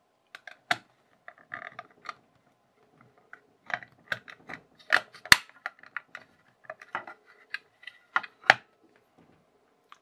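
Irregular plastic clicks and taps from a small electronics kit being handled: a blue plastic circuit board fitted and pressed onto its clear plastic case, with a few sharper clicks around the middle.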